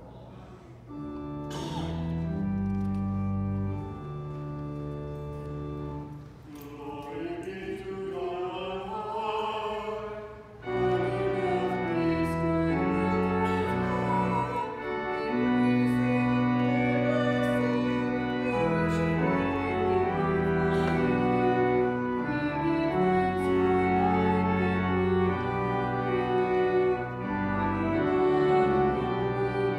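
Church music: an instrument holding sustained chords, with a singing voice with vibrato coming in about seven seconds in. The music gets fuller and louder from about eleven seconds.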